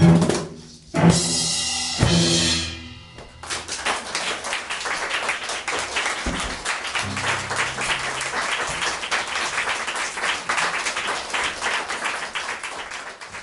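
Three cellos and drums strike the closing chords of a metal piece, three hits about a second apart that ring out. Audience applause follows from about three and a half seconds in, fading near the end.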